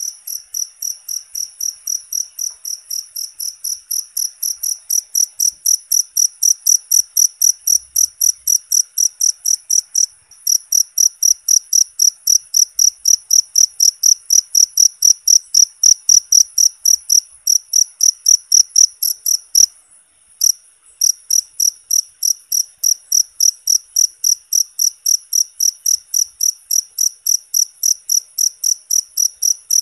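A cricket chirping loudly in a steady, even train of short high-pitched chirps, about three a second. The train breaks off briefly about ten seconds in and again about twenty seconds in, then carries on.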